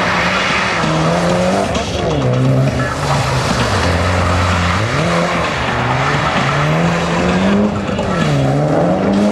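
Mitsubishi Lancer Evolution rally car's turbocharged four-cylinder engine revving up and down, its pitch rising and falling several times as the car slides through the course, with tyres skidding on wet tarmac.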